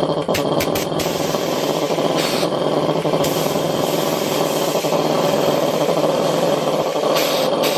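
Belt-driven air compressor pump, turned by an electric motor, running steadily with a high hiss over it. A few short clicks come about half a second to a second in.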